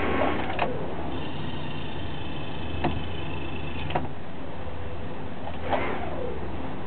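Motorboat engine running steadily at low speed, heard from behind the windscreen at the helm. A few sharp clicks and a short falling squeak about six seconds in sound over the hum.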